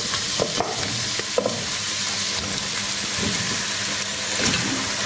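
Tomato-onion masala sizzling in a pressure-cooker pot as fried chicken pieces are added and stirred in with a metal spoon. Short knocks and scrapes of the spoon come over a steady hiss.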